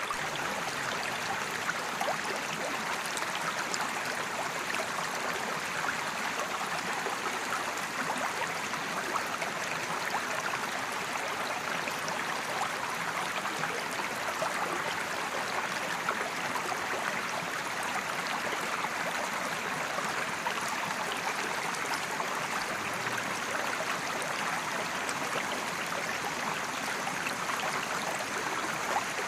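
Mountain creek flowing over rocks: a steady rushing and babbling of water.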